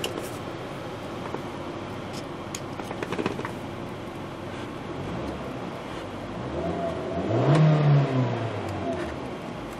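2013 Hyundai Veloster's four-cylinder engine idling in park, heard from inside the cabin, then revved once: the pitch rises from about five seconds in to around 4,000 rpm near eight seconds and falls back to idle. A few light clicks come about three seconds in.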